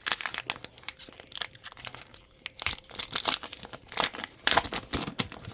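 Foil Pokémon TCG booster pack wrapper being crinkled and torn open, a dense run of irregular crackles.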